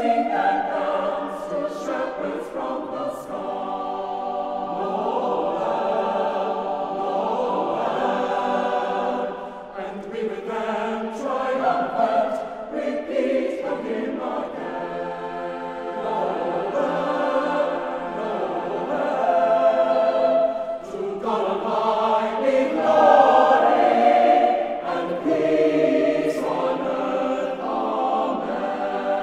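Choir singing a Christmas choral anthem in long sustained phrases, many voices together, ebbing and swelling and reaching its loudest about three-quarters of the way through.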